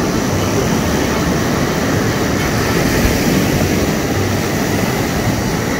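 Steady, loud noise of surf and wind rumbling on the microphone.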